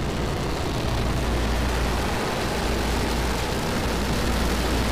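Starship prototype's rocket engines firing: a loud, steady rushing noise with a heavy deep rumble underneath.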